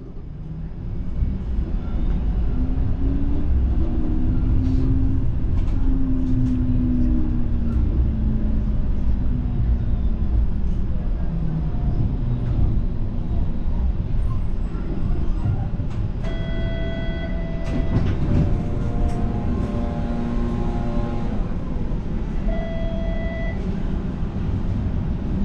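A Toronto TTC streetcar running, heard from inside: a steady low rumble of the ride, with the motor's whine rising and then falling in pitch a few seconds in. Short steady electronic tones sound about two-thirds through and again near the end.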